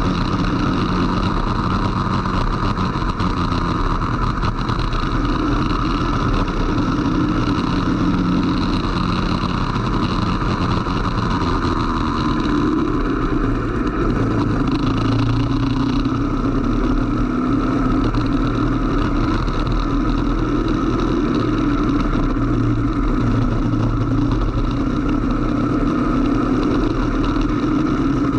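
Racing go-kart engine running hard, heard onboard. Its note drops as the kart slows to about 40 km/h around the middle and climbs again as it accelerates away.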